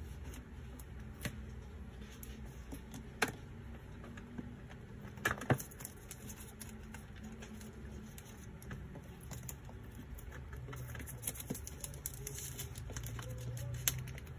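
Hands handling a small cardboard product box while opening it: scattered light taps, scrapes and clicks, with a few sharper knocks, over a low steady hum.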